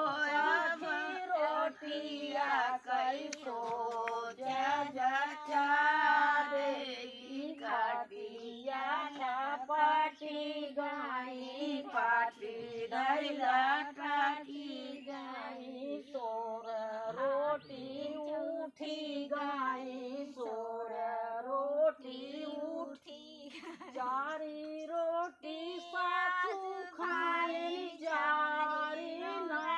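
Women singing a sohar, the North Indian folk song sung to celebrate a childbirth, in a continuous melodic line of long held, wavering notes broken by short pauses for breath.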